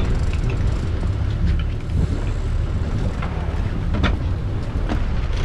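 Boat engine running with a steady low rumble, with a few faint knocks over it.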